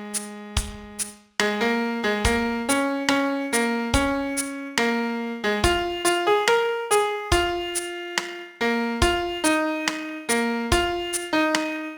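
Piano playing a song's melody one note at a time, each note struck and left to fade before the next, with a brief gap about a second and a half in.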